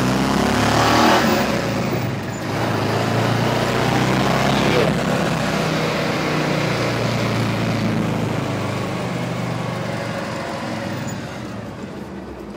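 Rebuilt small-block Chevy V8 of about 400 hp, in a pickup truck, pulling hard under acceleration. Its revs climb, dip briefly about two seconds in, pull again, then slowly fade near the end. The deep, bassy exhaust note distorts the microphone.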